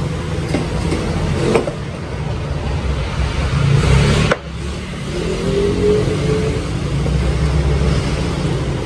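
Steady low motor-like rumble in the background, briefly cut off about four seconds in. It comes with a couple of light knocks from a chef's knife slicing boiled ox tongue on a wooden cutting board.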